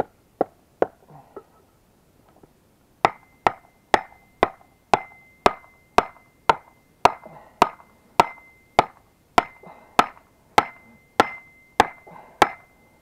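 Hammer blows on a wooden block, driving the Buran snowmobile's suspension bogie axle back into place. A few lighter taps, a pause of about a second and a half, then steady strikes about two a second with a high ring hanging between them.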